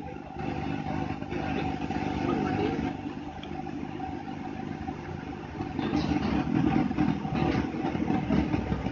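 Bus engine running and road noise heard from inside the driver's cab while the bus is driven, a steady low rumble with a constant whine over it, getting louder about six seconds in.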